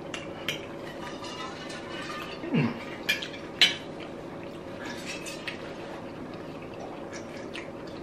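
Close-miked eating and drinking sounds: a fork clinking on a plate and a few sharp mouth clicks, then faint swallowing as a drink is taken from a large insulated water bottle.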